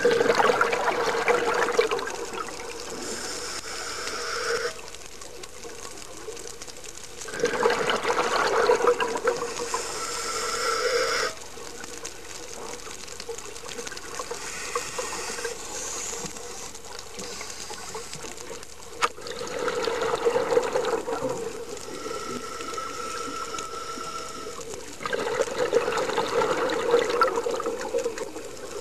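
Scuba diver breathing through a regulator underwater: four loud bursts of exhaled bubbles a few seconds long, with quieter hissing between them.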